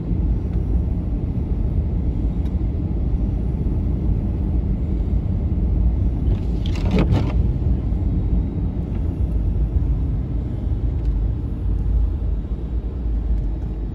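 Steady low rumble of a vehicle's engine and tyres, heard from inside the cab while driving a snowy road. A brief, higher-pitched sound cuts in once about seven seconds in.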